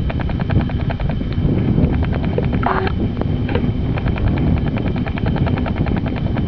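LNER Peppercorn A1 Pacific No. 60163 Tornado, a three-cylinder steam locomotive, working a train with its exhaust beating in a rapid, even chuff over a low rumble.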